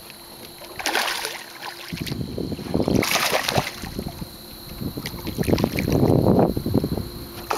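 A hooked largemouth bass thrashing and splashing at the surface as it is played in beside a small boat, with wind buffeting the microphone. The splashing is heaviest a little past the middle.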